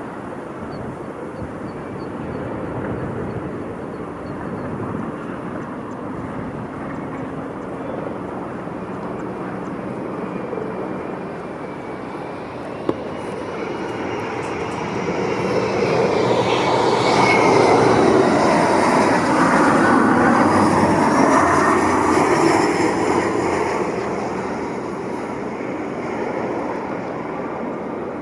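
Twin-engine Embraer regional jet's turbofans on landing approach, passing close by. The engine noise grows to its loudest a little past the middle, with whining tones sliding in pitch, then fades.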